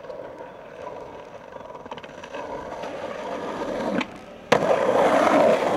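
Skateboard wheels rolling on pavement, getting louder as the skater picks up speed. About four seconds in the tail pops, and half a second later there is a sharp clack of the board hitting the concrete ledge, followed by a loud scraping grind.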